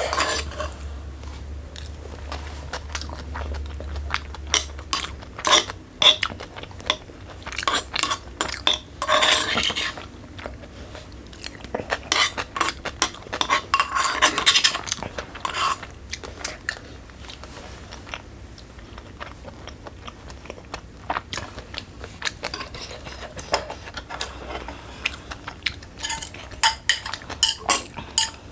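Eating sounds: utensils clinking and scraping against a bowl of bibimbap and japchae, with chewing and crunching in between.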